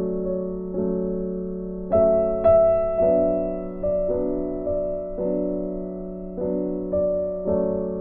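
Background music: a slow, gentle piano piece, notes and chords struck every second or so and left to ring and fade over a held low note.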